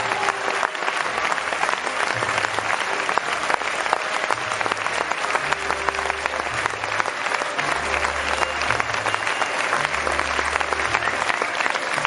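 Large theatre audience applauding with dense, steady clapping during a curtain call.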